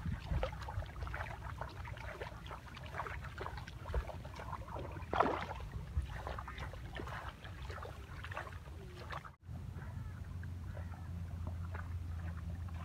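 Rustling with many small crackles as weeds and rice plants are pulled up by hand from a paddy field, over a low rumble. About nine seconds in the sound briefly cuts out, and after it a steadier low rumble continues with fewer crackles.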